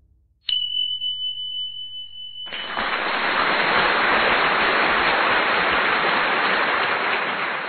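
An edited-in sound effect: a sharp, steady high tone starts suddenly about half a second in and holds for about two and a half seconds, then a loud, even rush of noise takes over and runs on steadily.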